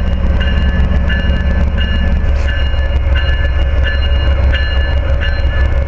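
Amtrak train led by an ACS-64 electric and a P42DC diesel locomotive standing ready to depart, with a steady low engine rumble. A high ringing tone repeats about every two-thirds of a second over it.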